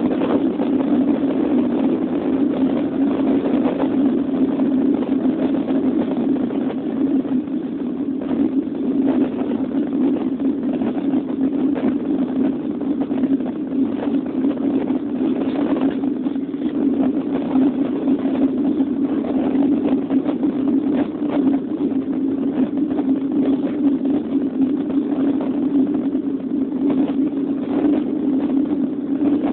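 Boeing 737 jet engines at takeoff thrust, heard from inside the passenger cabin: a steady, loud drone as the plane rolls down the runway, lifts off and climbs.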